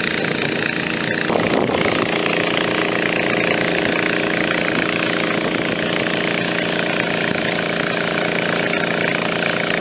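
Small engine-driven water pump running steadily, pumping water into a flood-barrier tube.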